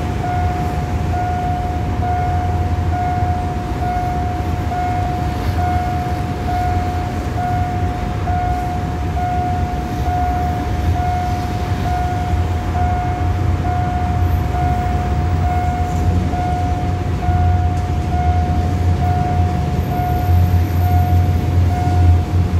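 Level-crossing warning signal sounding a single electronic tone that pulses about once a second, over the low rumble of an approaching SRT diesel train that grows louder near the end.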